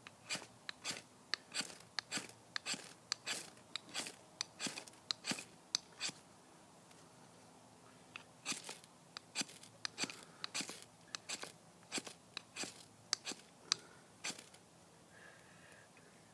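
Ferro rod struck over and over with the spine of a high-carbon JRS bushcraft knife: quick, sharp scrapes, about two or three a second. The scrapes break off for about two seconds midway and stop a couple of seconds before the end, as the sparks fail to light the kindling.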